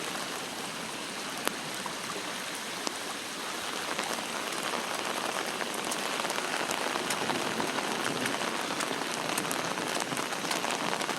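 Steady rain pattering down, with a couple of sharper raindrop hits about one and a half and three seconds in.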